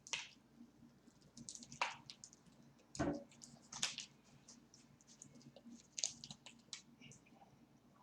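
Close-up eating sounds: chewing fried chicken wings, with short irregular wet clicks and smacks, the loudest about two to four seconds in.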